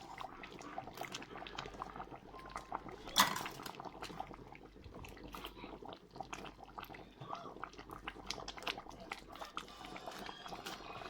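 Cooking sounds from a pot of simmering egusi soup: scattered small clicks and knocks with a faint liquid sound, and one louder knock about three seconds in.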